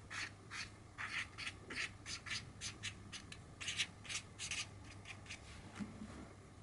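Felt-tip marker writing on a pad of lined paper: a faint, quick series of short pen strokes, about four a second, that thins out near the end.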